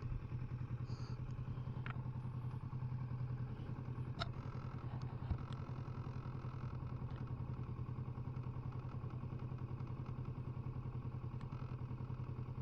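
Kawasaki Versys 650's parallel-twin engine running steadily at low revs, its pitch holding even. A few faint clicks come through over it.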